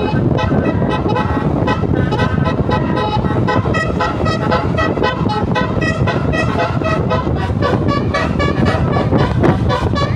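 Basuri telolet musical horn on a tour bus playing a fast melody of short pitched notes, over a steady rumble of engine and road noise.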